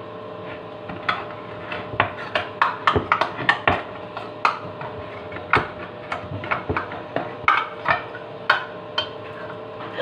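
Kitchen knife point being stabbed again and again into the metal lid of a tin can to pierce it open without a can opener. The blows come as an irregular run of sharp metallic knocks and clicks, starting about a second in and several a second at the busiest.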